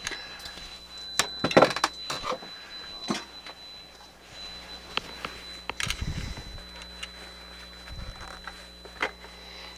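Scattered light clicks and taps of small tools and parts being handled on a workbench, with a couple of soft low thuds.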